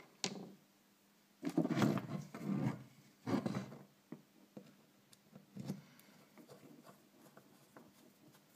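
Handling sounds from a small metal RC nitro engine being held and turned on a wooden workbench while a screw is driven into it with a long hex driver: a sharp click at the start, a couple of short scraping and rubbing spells, then faint light ticks.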